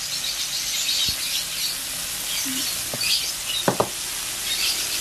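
Flour-battered shrimp deep-frying in hot oil in a wok: a steady sizzle with crackling, plus a couple of brief clicks a little before the end.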